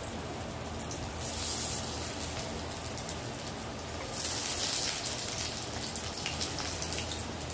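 Hot oil sizzling in a kadhai around shallow-frying mung and chana dal kebab patties. The sizzle swells louder twice, about a second in and again about four seconds in, as raw patties are laid into the oil.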